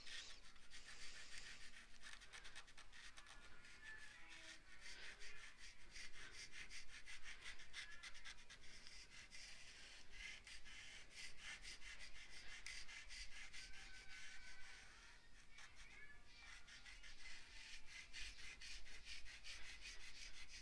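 Stick of blue chalk scratching across black paper in quick back-and-forth colouring strokes, faint and steady, pausing briefly twice.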